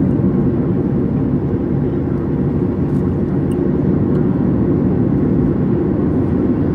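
Steady road and engine drone of a car cruising, heard from inside the cabin.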